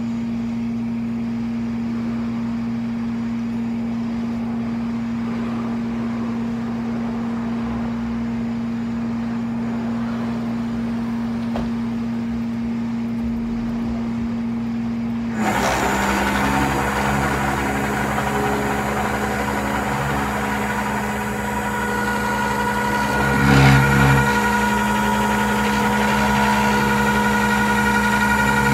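Flatbed tow truck's engine running steadily. About halfway through the sound steps up louder and harsher, with a new steady whine over the engine note, and it holds there.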